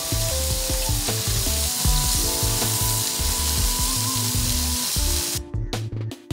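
Beef burger patties sizzling on a grill grate over an open oak wood fire: a steady, loud hiss that cuts off suddenly about five seconds in. Background music with a bass beat plays underneath.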